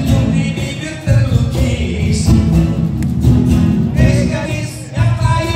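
Live rock band playing a song, with a singer's voice carried over the band.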